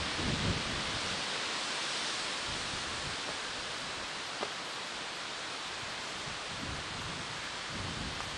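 A steady hiss of outdoor noise, with a few soft low thumps just after the start and again near the end.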